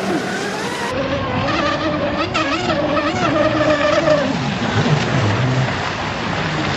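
Traxxas M41 RC catamaran's brushless motor whining at speed over a rush of water noise, its pitch wavering up and down with the throttle.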